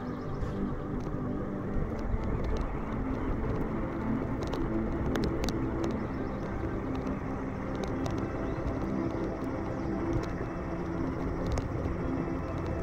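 Electric Axial Ryft RC rock bouncer driving over sand: its motor and drivetrain whine, rising and falling in pitch with the throttle, over a dense rumble, with a few sharp ticks.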